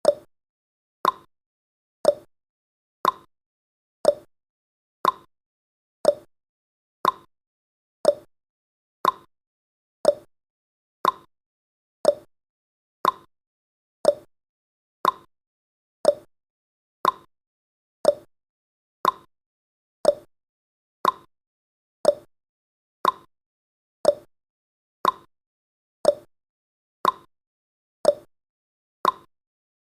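Countdown timer's clock-tick sound effect: one sharp tick every second, alternating between a lower and a higher tick in a steady tick-tock.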